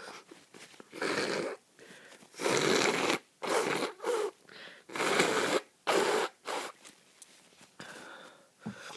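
A person congested with flu sniffing and snorting hard through the nose: a run of about eight noisy bursts, some long and some short, with short pauses between.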